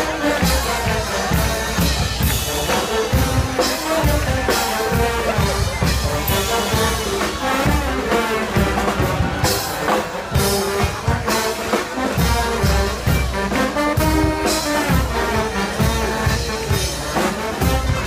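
Live wind band playing a tune on brass and saxophones over a steady drum beat.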